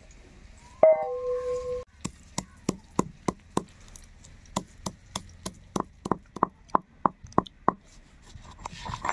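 Stone pestle pounding roasted black pepper, coriander seeds and cumin in a granite mortar, in steady strokes about three a second from about two seconds in, each a sharp stone knock. About a second in, a sharp clank rings on for about a second.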